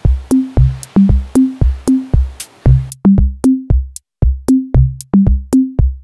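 Electronic music: a drum-machine beat of short, punchy low notes at about four a second, breaking off briefly about four seconds in.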